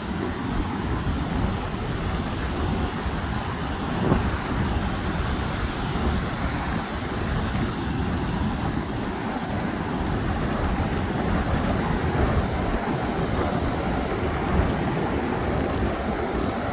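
Wind buffeting the phone's microphone over the steady rush of ocean surf breaking on the beach, with two brief louder bumps, one about four seconds in and one near the end.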